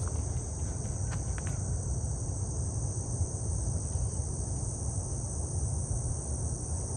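Steady chorus of insects, a continuous high buzzing, over a low rumble.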